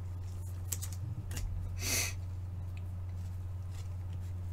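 Trading cards being handled and shuffled from a pack: a few light clicks and a short swish about two seconds in, over a steady low hum.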